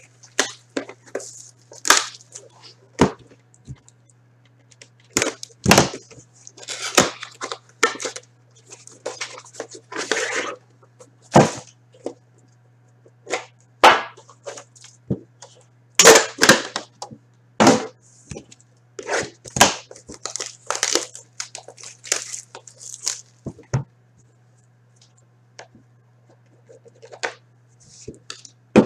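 Hands tearing open a box of The Cup hockey cards and handling its paper inserts and cards. The sound is a string of sharp rips, crinkles and clicks of cardboard and wrapper, growing sparse and faint for the last few seconds, with a faint steady hum underneath.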